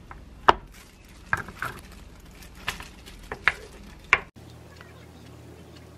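Hard plastic triangle rice-ball mold clicking and knocking as it is lifted apart and handled on a wooden cutting board: about seven sharp knocks in four seconds, the loudest about half a second in.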